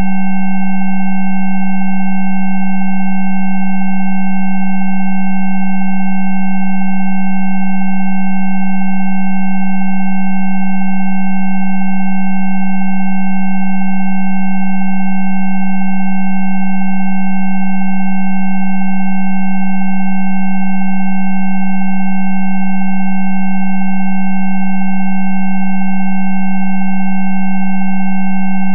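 Steady electronic sine tones played as a Rife frequency track. A loud low tone sits under several fainter, higher tones, and all of them hold unchanged without a break.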